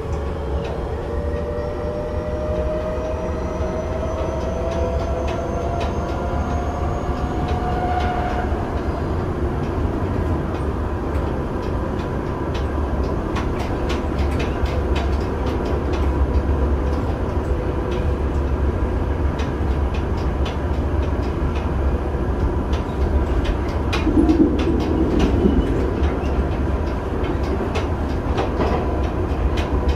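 Tokyo Metro 7000 series electric train with Mitsubishi IGBT-VVVF inverter control, heard from inside the car. The inverter and traction-motor whine rises in pitch as the train gathers speed and drops out about eight seconds in. After that the train runs on with a steady rumble and frequent rail-joint clicks.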